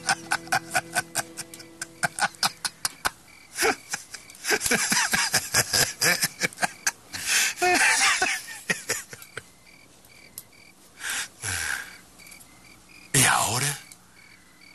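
A man laughing hard in rapid, short pulses, then more heavy laughing over several seconds, with shorter bursts near the end. Crickets chirp steadily in the quieter second half.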